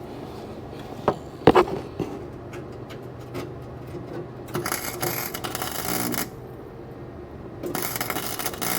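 Power drill driving self-tapping screws into sheet-metal floor pan: two bursts about a second and a half long, with a few sharp knocks before them.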